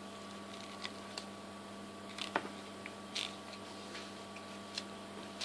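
A few small clicks and light taps as gloved hands handle the parts of a fuel cell fixture, its end plate and bolts, over a faint steady hum.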